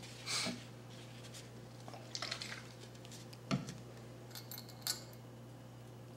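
Faint handling sounds at a worktable: paper towel rustling and a few light clicks, with one short knock about three and a half seconds in, over a steady low hum.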